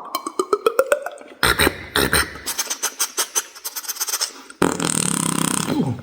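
Beatboxer making sound effects with the mouth. First comes a run of quick clicks rising in pitch, then a dense rattle of rapid clicks. Near the end a sustained hissing tone takes over.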